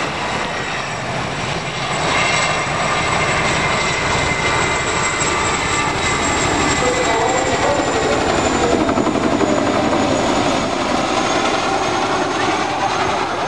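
Boeing CH-47 Chinook twin-rotor helicopter flying overhead: steady, loud rapid rotor beating under a high turbine whine that slowly falls in pitch.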